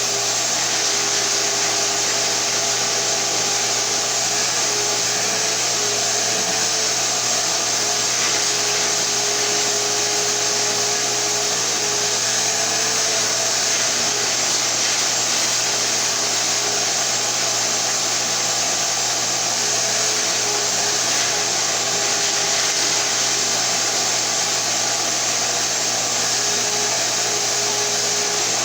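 A 7.5-gallon shop vacuum running steadily: a motor whine over a rush of air.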